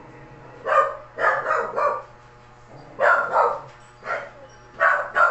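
A dog barking repeatedly in short bouts of one to three barks, with brief pauses between.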